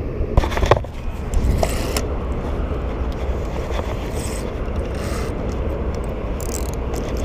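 Steady low rumble of city traffic noise, with a few short clicks and scrapes near the start from handling the fishing rig.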